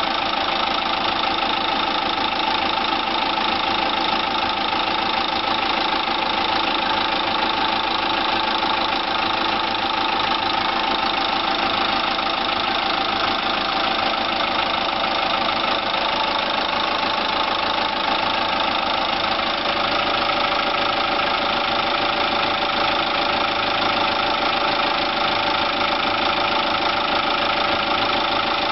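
Kia Bongo 3's J3 four-cylinder diesel idling steadily at about 800 rpm, with a periodic knocking, like little hammers, that comes and goes. The owner cannot tell whether it lies in the newly fitted injectors or elsewhere; the fuel supply line is drawing air.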